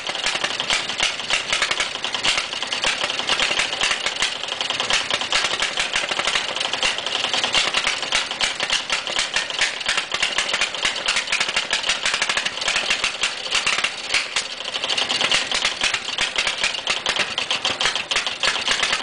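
Antique Waterman C14 outboard motor running on a stand out of the water, a steady, rapid clatter of firing strokes.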